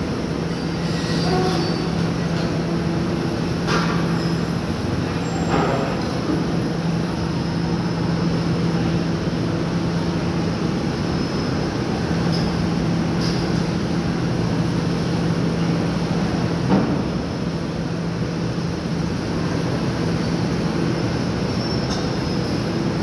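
PC400 crawler excavator moving over a ship's steel ramp: a steady heavy engine drone over a grinding rumble, with a few sharp knocks, about four, six and seventeen seconds in.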